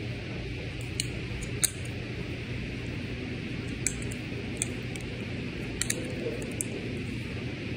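Steady low indoor room hum, with a few small sharp clicks scattered through it.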